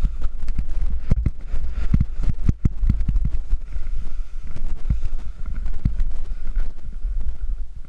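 Snowboard riding over choppy, tracked snow: the board scrapes and chatters with many sharp knocks, under a heavy low rumble of wind buffeting the GoPro's microphone.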